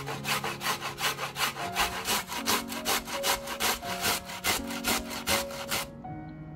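A cucumber being grated on a stainless steel box grater: quick, even rasping strokes, about three a second, that stop about six seconds in.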